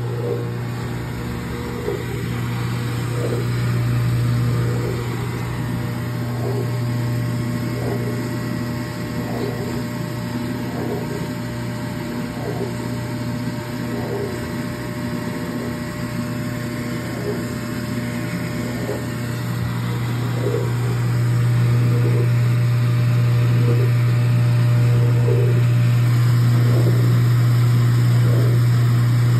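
Speed Queen top-load washer's drive motor running in the spin cycle with a steady hum and a faint tick about once a second, getting louder about twenty seconds in. The belt is worn through, so the motor and its coupled drain pump turn while the drum is not driven, which is why the clothes come out wet.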